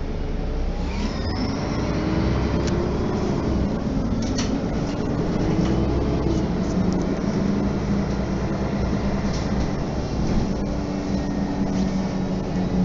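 Mercedes-Benz O 530 G articulated city bus heard from inside the passenger cabin while driving: the engine and drivetrain hum rises in pitch over the first few seconds, then holds steady, with a few sharp clicks from the cabin.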